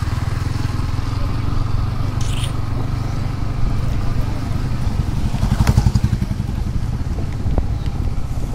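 Motorcycle engine running steadily while riding, heard from on the bike: a low, fast-pulsing drone that throbs louder for a moment a little past halfway.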